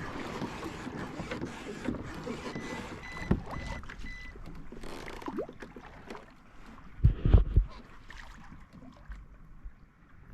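Scattered small knocks and clicks of fishing gear being handled on a kayak, with a cluster of heavy low thumps about seven seconds in.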